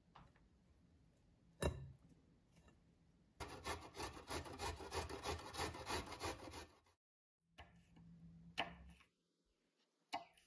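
A carrot being rubbed up and down a metal box grater in quick rasping strokes, about four a second for some three and a half seconds. A single sharp knock comes before it, and a few lighter knocks follow.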